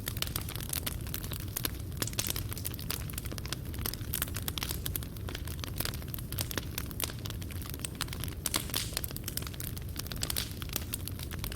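Fireplace fire burning, with dense irregular crackling and popping of burning wood and coals over a low steady rumble.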